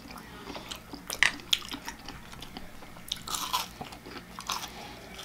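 Close-up chewing with a few crisp crunches from biting into a deep-fried biscuit.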